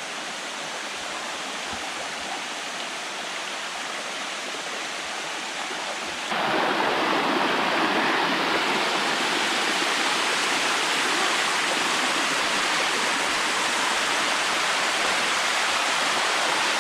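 Water rushing down a limestone waterfall cascade, a steady hiss that jumps louder about six seconds in.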